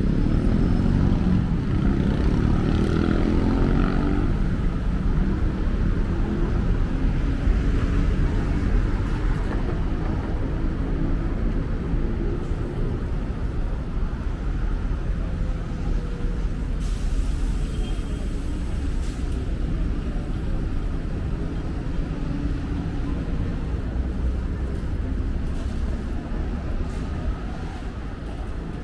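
City street traffic: a steady rumble of vehicles running and passing, loudest in the first few seconds.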